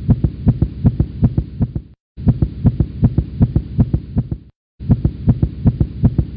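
Motorcycle engine idling with an uneven, low exhaust pulse of about six beats a second, heard as three short identical edited stretches, each cut off abruptly.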